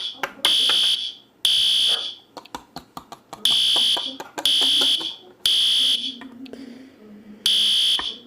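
Fire alarm sounding high-pitched blasts of about half a second, once a second in groups of three with a longer pause between groups: the temporal-three evacuation pattern. Faint clicks and taps come between the blasts.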